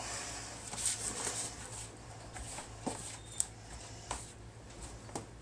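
Snapping-turtle meat being dredged by hand in flour in a plastic tub: soft rustling and patting, with a few light ticks against the plastic, over a low steady hum.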